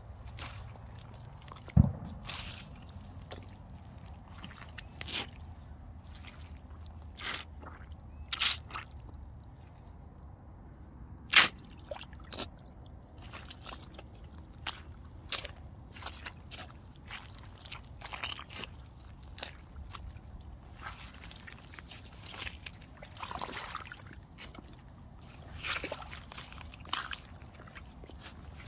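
Aigle rubber wellington boots squelching in wet mud and sloshing through muddy puddles, in slow, irregular steps. There is a sharp thump about two seconds in.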